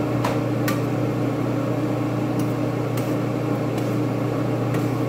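Steady low machine hum of a kitchen appliance or vent fan, with about six light clicks of a spoon against the skillet as the thickening gravy is stirred.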